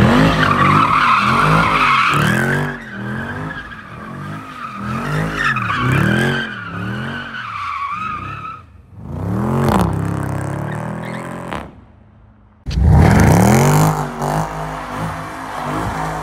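Jeep Grand Cherokee Trackhawk's supercharged V8 revving up and down about once a second while its tyres squeal, spinning donuts. Near the end, after a brief drop-out, the engine revs up again and holds.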